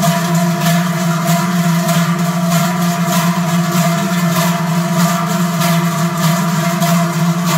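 Large sheet-metal cowbells (Trycheln) swung in unison by a marching column of bell-ringers, a dense clanging with an even beat over a steady ringing drone.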